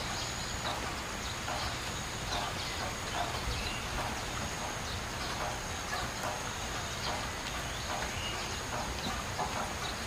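Outdoor forest-edge ambience: a steady high-pitched drone with scattered short animal calls and footsteps on a dirt path.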